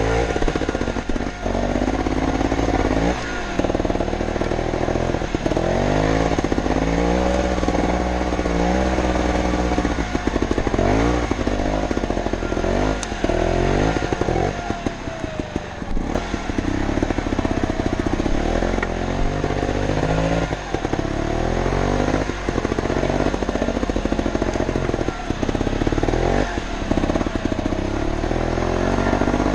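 Montesa Cota 315R trials motorcycle's single-cylinder four-stroke engine being ridden, its revs rising and falling again and again as the throttle is opened and shut, with frequent brief dips.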